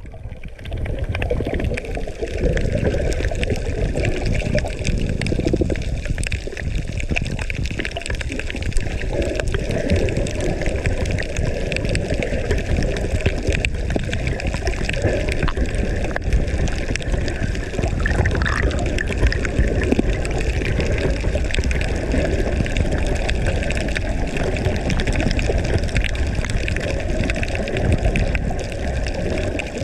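Water sloshing, gurgling and bubbling against a GoPro camera in its waterproof housing, a steady rush with many small crackles and a low rumble.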